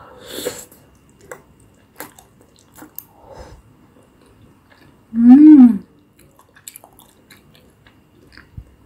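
Close-miked chewing of a chewy tteokbokki rice cake in thick sauce: a wet slurp as it goes into the mouth, then soft, moist mouth clicks. About five seconds in comes a loud, short 'mmm' of enjoyment that rises and falls in pitch.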